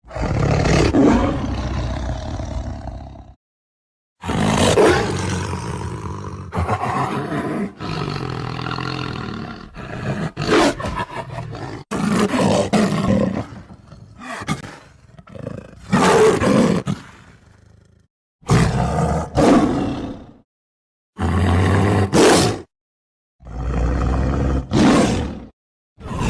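A series of tiger roars and growls, one after another, each starting and stopping abruptly, with short silences between them.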